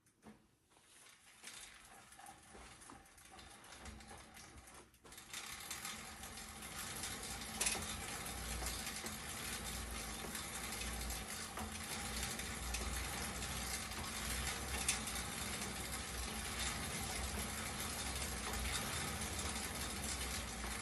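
Schwinn air-resistance exercise bike being pedaled: its fan wheel whirs with a steady mechanical whoosh, faint at first and building to an even level about five seconds in as the wheel spins up.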